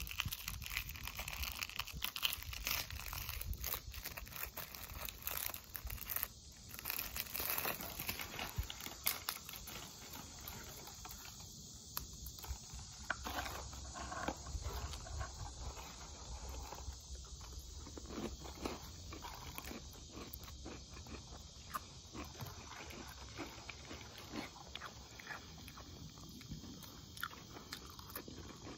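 Close-up chewing and crunching of food, with many irregular crackles and clicks.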